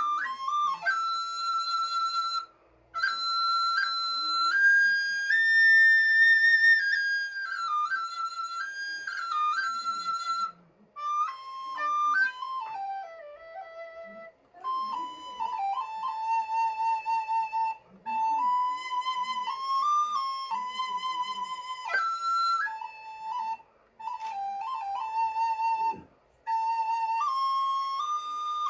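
Recorder playing a slow solo melody of held notes, in short phrases separated by brief breath pauses.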